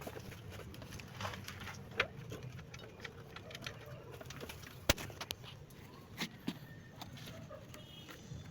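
Scattered sharp clicks and knocks, one or two at a time, over a low steady rumble; the sharpest knock comes about five seconds in.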